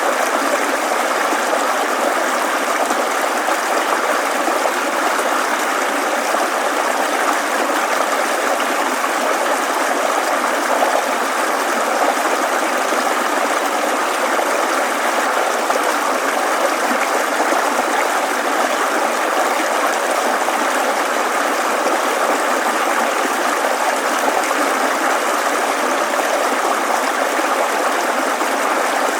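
Mountain stream babbling steadily, a continuous rush of running water with no breaks.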